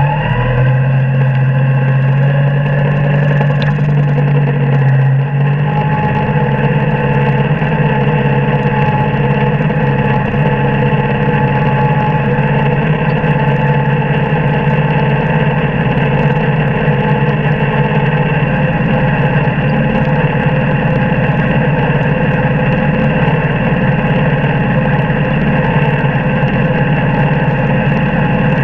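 New Holland TC30 compact tractor's three-cylinder diesel engine running steadily under load, driving the PTO of a manure spreader that is flinging chicken manure.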